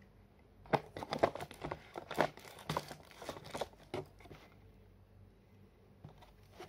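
Quick irregular rustling and crinkling with light knocks as items are handled and packed into a cardboard box. About a dozen short sounds come over roughly three seconds, then they stop.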